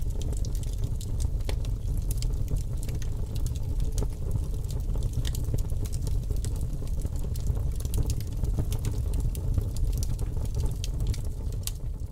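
Recorded campfire sound effect: a wood fire crackling, with irregular sharp pops and snaps over a steady low rumble.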